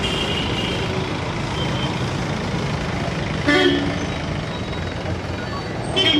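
Busy street traffic with vehicle engines running, and a vehicle horn honking briefly about three and a half seconds in and again near the end.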